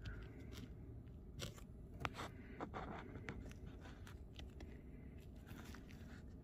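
Faint, irregular clicks and crackles over low background noise.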